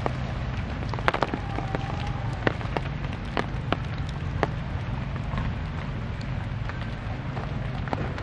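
Outdoor ambience: a steady low rumble with many scattered sharp clicks and crackles at irregular intervals.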